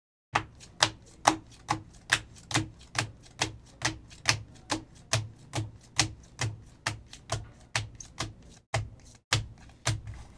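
A stack of Optic football trading cards being flipped through by hand, one card at a time, each card giving a sharp snap. The snaps come in a steady rhythm of about two and a half a second.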